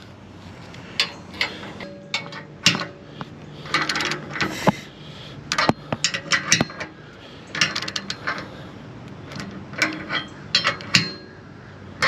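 Ratchet wrench with an 18 mm socket tightening steel mounting bolts: irregular metallic clicks and clinks, some in quick clusters, as the ratchet is swung and the socket knocks on the bolt heads.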